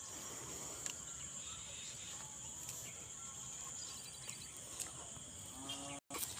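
Steady, high-pitched insect drone in the background, like crickets, with a short low-pitched animal call just before the end.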